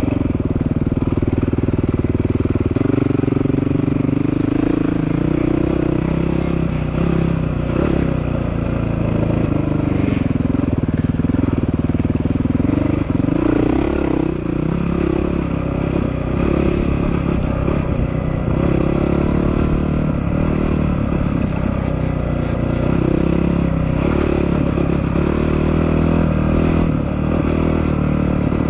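Honda dirt bike engine running while riding a dirt trail, the engine note rising and falling as the throttle opens and closes.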